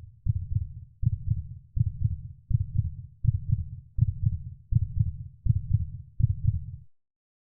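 Deep, muffled low-end thumps in an even rhythm, about one every three quarters of a second, each a short cluster of pulses with no high sounds over them. The thumps stop abruptly near the end.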